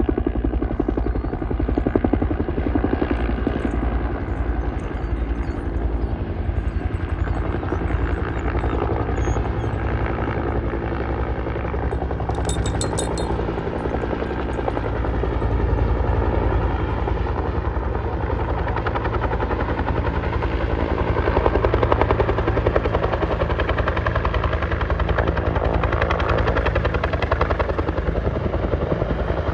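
Helicopter flying, its rotor chop loud and steady with slight swells in level.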